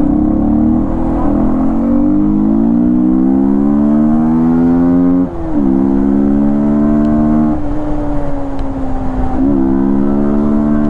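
Yamaha MT-15's 155 cc single-cylinder engine running with an open air filter, its intake sound loud. The engine note climbs steadily under acceleration, drops sharply at a gear change about five seconds in, climbs and levels off, then drops and climbs again about a second before the end.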